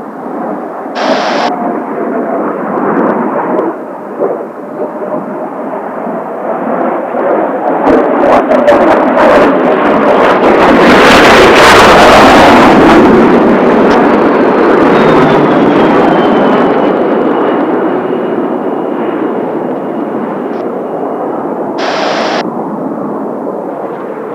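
Kawasaki T-4 jet trainers of the Blue Impulse team flying past low, their twin turbofans swelling to a loud crackling peak about halfway through, then fading with a high whine falling slowly in pitch. A short burst of hiss comes about a second in and again near the end.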